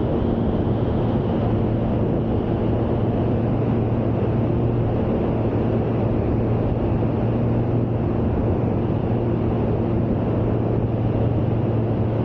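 Steady drone of a light single-engine piston aircraft's engine and propeller at cruise, heard from inside the cockpit of a Van's RV-type homebuilt, with a constant low hum and no change in power.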